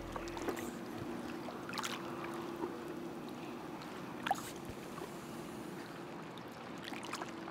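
Gentle water lapping and trickling around a shallow-water skiff and its push pole, with a few soft drips, over a faint steady hum.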